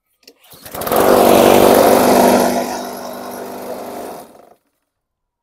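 Honda GCV160 mower engine pull-started, catching about a second in and running loud, then settling to a lower level before cutting off suddenly. The mower shakes itself hard as it runs, which the owner puts down to a blade problem.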